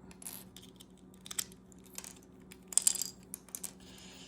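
Small clicks and scrapes of hard plastic and small metal tools being handled while an action figure is worked on, with a quick cluster of clicks about three seconds in.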